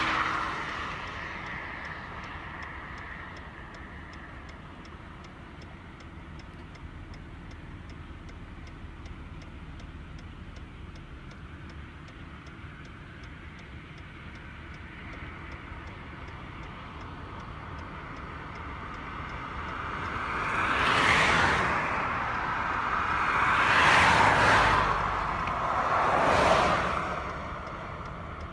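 Outdoor traffic noise: a steady low hum, then three vehicles passing close one after another near the end, each swelling up and fading away over about two seconds.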